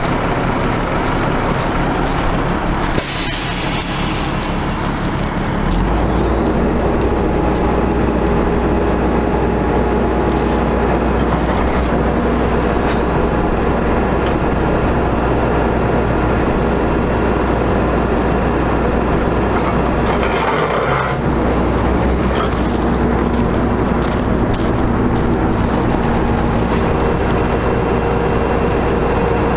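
International 4900 digger truck's diesel engine running steadily while the hydraulic outriggers are worked from the rear control levers. A burst of air hiss comes about three seconds in, and the engine note steps up and grows louder about six seconds in.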